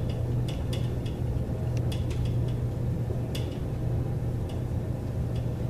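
Dry-erase marker writing on a whiteboard: many short, light taps and scratches as the letters are formed, over a steady low hum.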